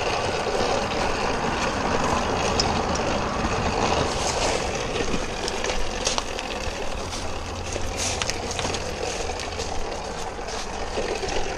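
Predator 6.5 hp single-cylinder four-stroke engine on a motorized bicycle running at low revs, a steady low hum, with scattered crackles as the tyres roll over dry leaves.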